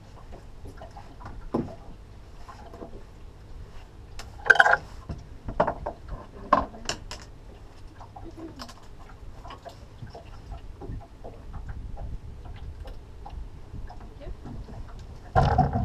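Scattered knocks and clunks from fishing gear being handled aboard a boat. The loudest come about four and a half seconds in, a few more follow a second or two later, and another comes near the end.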